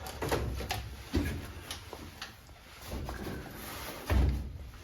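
A few light knocks and clicks from objects being handled, then a dull thump about four seconds in.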